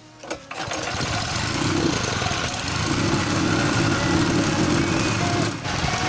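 9-horsepower small engine fitted with a homemade exhaust, starting up under half a second in and then running loud and steady, with a brief drop near the end.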